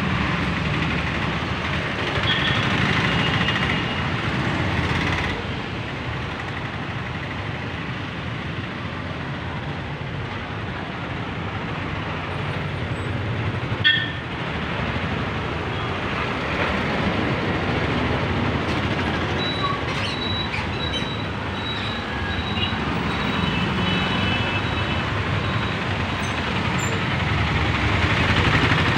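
Busy street traffic: the engines of passing auto-rickshaws, motorcycles and cars run on steadily, with a single sharp knock about halfway through and thin high tones here and there.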